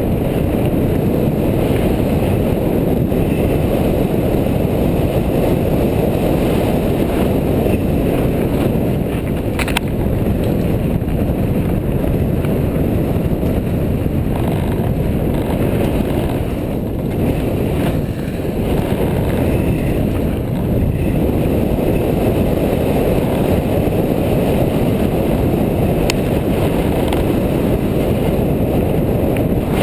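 Mountain bike descending a dirt fire road: steady wind buffeting on the bike-mounted camera's microphone over the rumble of tyres rolling on dirt and gravel. Two sharp clicks cut through, about ten seconds in and near the end.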